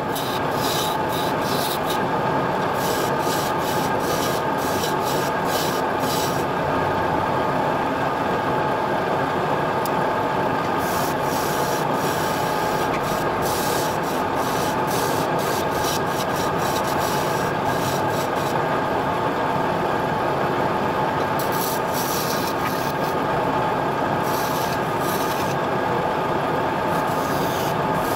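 Electric wood lathe running with a steady hum and whine while a hand-held tool rubs and scrapes against the spinning wooden workpiece, the scraping coming and going in spells.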